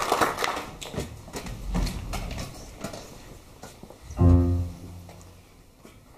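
Scattered clapping that fades away, then a single low note struck on an electric stage piano about four seconds in, ringing out and fading.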